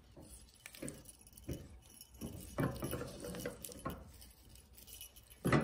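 Silicone spatula scraping and knocking around a stainless steel saucepan in irregular strokes while stirring melting white chocolate, with the loudest knock near the end. Light jingling from small bells is mixed in.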